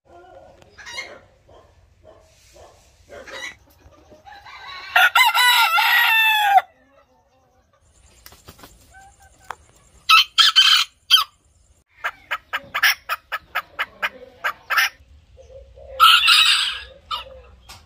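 Chickens: a rooster crows once, a long loud call about five seconds in, amid scattered clucking, with a quick run of clucks later on and another loud call near the end.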